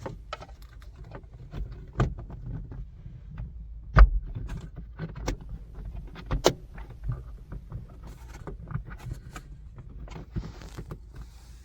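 Scattered plastic clicks, taps and knocks as a dash cam is handled and pressed into its place at the rearview mirror, the loudest knock about four seconds in.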